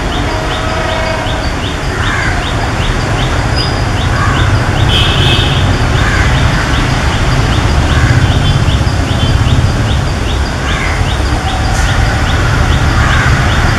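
Low rumble of a WDP4 (EMD GT46PAC) diesel locomotive's two-stroke engine as it approaches slowly, growing gradually louder. Birds chirp over it, with a short high chirp repeating about twice a second.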